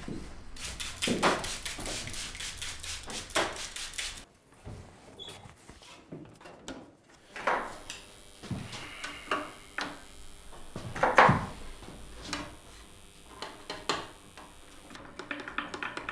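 Thin wooden guitar side strips and slats being handled and laid onto a wooden side-bending form: a quick run of clicks and rattles in the first few seconds, then separate knocks and scrapes, the loudest about two-thirds of the way through. A faint steady high whine sits under the middle part.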